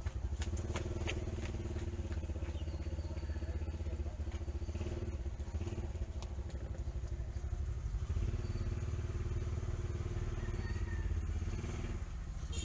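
Motor vehicle engine running steadily at idle, with a few light clicks about a second in.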